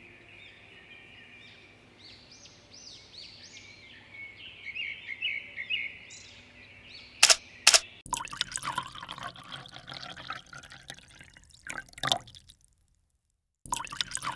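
High chirping sounds for the first several seconds, then two sharp clicks, then liquid pouring and trickling from a shot-glass dispenser into a ring of shot glasses. The sound cuts out for about a second near the end.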